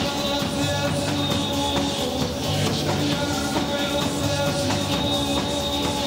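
Live rock band playing: drum kit, electric bass guitar and keyboard synthesizer, with sustained synth tones over a steady drum beat.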